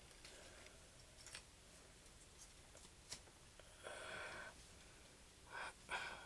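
Near silence with a few faint clicks and soft rubbing as slotted pieces of a dinosaur skeleton model puzzle are handled and pressed into place, with a short soft scrape about four seconds in.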